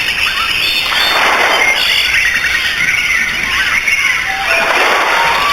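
Bay ambience: many small birds chirping and squeaking over a rushing noise that swells and fades twice.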